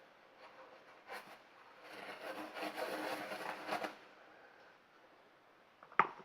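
Paper rustling and rubbing for about two seconds as excess lipstick is blotted off. A single sharp click near the end.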